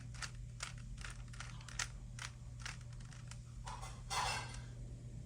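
Rubik's Cube faces being twisted by hand: a run of quick plastic clicks a few tenths of a second apart, with a longer rasping turn about four seconds in.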